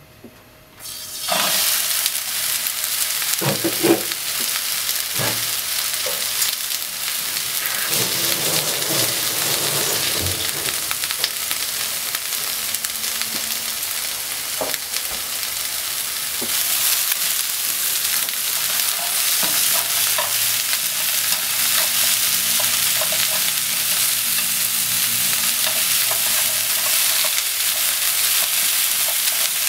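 Shredded cabbage sizzling in a hot frying pan, the sizzle starting suddenly about a second in and going on steadily. It is being stirred with wooden chopsticks, with a few knocks in the first ten seconds.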